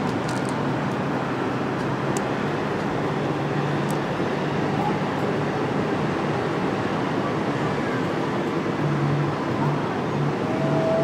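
Steady background noise of road traffic, with a short faint rising whistle near the end.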